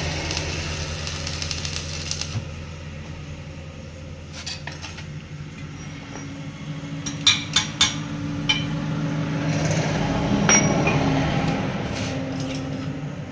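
Stick-welding arc crackling for about two seconds and then stopping, over a steady low hum. After it, a handful of sharp metallic clinks, several in quick succession near the middle.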